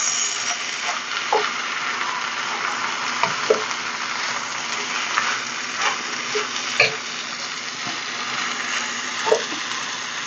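Day-old cooked rice with egg and vegetables frying in a wok with a steady sizzle while it is stirred with a wooden spoon, with a few short scrapes and knocks of the spoon against the pan.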